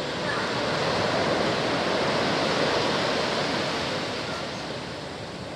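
Steady rushing outdoor noise, like distant surf or moving water, growing louder in the first second and easing off near the end.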